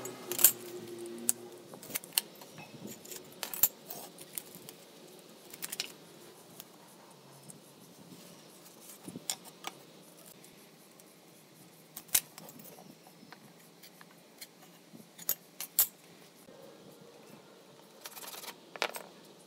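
Scattered light clicks and metallic clinks of a steel rule, square and marker being handled and set down on a concrete floor, one at a time with pauses between. Near the end a short scraping as a marking gauge is drawn along the pine board.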